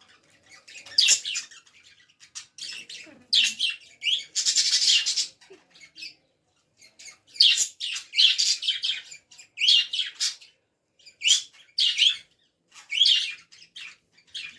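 Budgerigars chirping and chattering in quick, irregular short calls, with a longer unbroken run of chatter about four seconds in.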